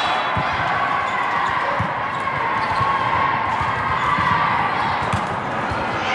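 Echoing din of a large sports hall full of volleyball play: many voices chattering and calling, with scattered irregular thumps of volleyballs being hit and bouncing on the court floor.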